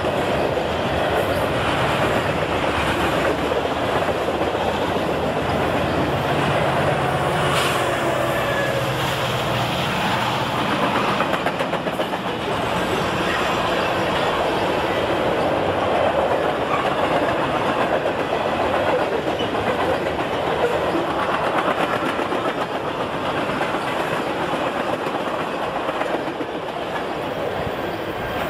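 Freight train of empty double-stack intermodal well cars rolling past, its steel wheels clattering steadily on the rails.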